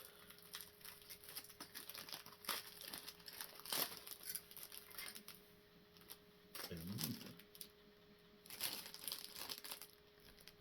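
Plastic packaging crinkling and rustling in irregular bursts as bagged model-kit parts are handled and unpacked.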